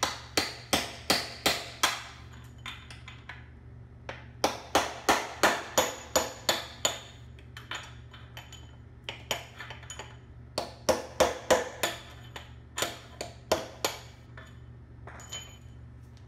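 Hammer striking an extension bar to drive the oil pump out of an automatic transmission case: runs of sharp metallic blows, about three a second, each with a short ringing ping, broken by brief pauses and a few lighter taps.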